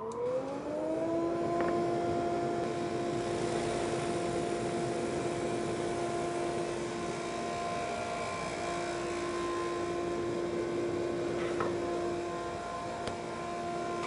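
SuperMax 19-38 combo drum/brush sander with its flexible abrasive-finger head, spinning up as it is switched on and settling to a steady whine about a second in, then running steadily while a veneered plywood panel feeds through under the head. A few light knocks come along the way.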